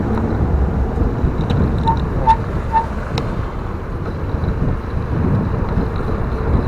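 Wind rumbling on the microphone and tyre noise during a bicycle ride. Three short high beeps come about two seconds in, with a few light clicks.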